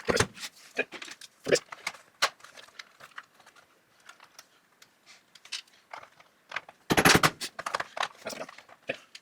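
Scattered clicks and knocks of chainsaw parts and hand tools being handled during assembly, with a quick rattle of rapid clicks about seven seconds in.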